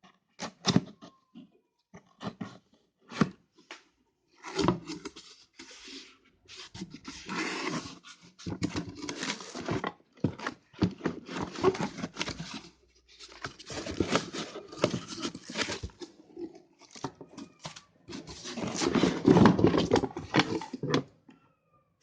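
Irregular rustling, clicks and knocks of a sander's box and packaging being handled, with the loudest stretch of rustling near the end.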